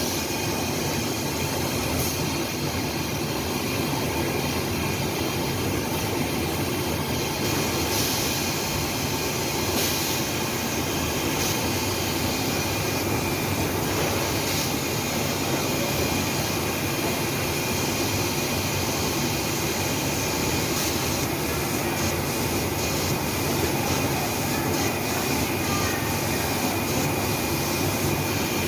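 Seam sealing tape machine running steadily, a constant mechanical hum with a faint high whine over it.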